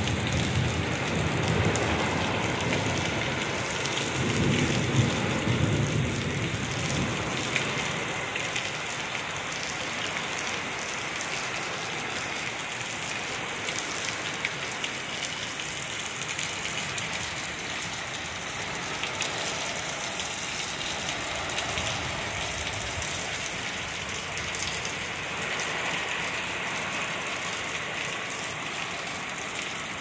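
Torrential wind-driven rain pouring steadily in a severe thunderstorm, with a couple of low rumbling swells in the first six seconds.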